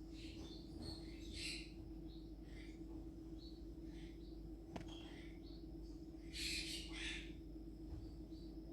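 Green parrots giving short, scattered squawks and chirps, with a louder burst of calls about six and a half seconds in, over a steady low hum.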